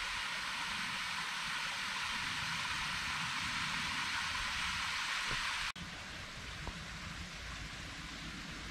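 Water pouring over a small weir in a stone-lined channel, a steady rushing. It cuts off abruptly about six seconds in and gives way to a quieter steady hiss.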